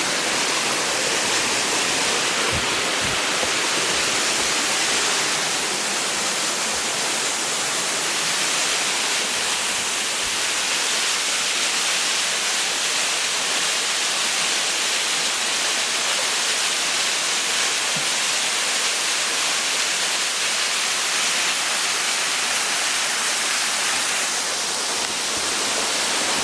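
Waterfall rushing: a steady, even hiss of falling water, with a few faint low bumps about three and ten seconds in.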